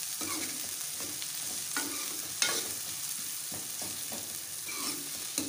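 Sliced onions sizzling in oil in a metal kadhai as they soften toward translucent, stirred with a metal spoon that scrapes and clinks against the pan a few times, loudest about two and a half seconds in.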